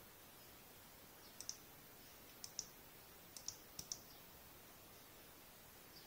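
Computer mouse buttons clicking: a handful of short double clicks, each a press and release, spread a second or so apart over faint room tone.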